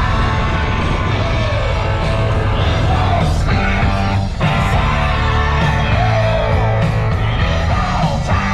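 Background music: a rock song with a singer and guitar.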